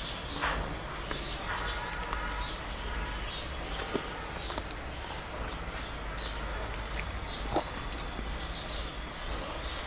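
Small birds chirping over and over in the background, with a low steady hum underneath. Two soft clicks, about four seconds in and again about seven and a half seconds in, come from eating rice and fish by hand.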